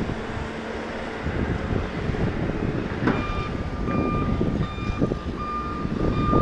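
Backup alarm of snow-clearing heavy equipment beeping repeatedly, starting about halfway through, over a low rumble.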